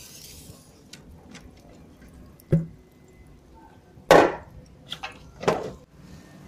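Metal knocks and clatter of cooking gear on a charcoal grill: one sharp knock about two and a half seconds in, then two louder, rattling clatters near the end as a hinged wire grill basket of chicken is set down on the metal grill box.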